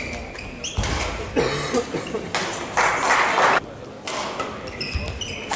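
Badminton shoes squeaking on the court floor in short, high chirps near the start and again about five seconds in, between short noisy bursts of court sound.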